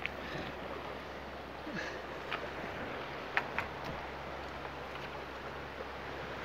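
Steady wash of ocean surf against shoreline rocks, with a couple of faint short clicks.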